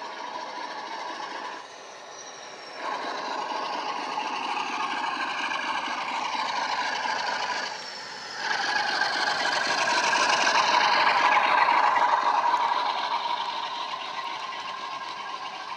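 ESU LokSound hifi sound decoder in a model Class 47 playing the Sulzer diesel engine sound through the loco's small speaker as it runs. The engine note drops back briefly twice, then is loudest as the model passes close and fades as its coaches follow.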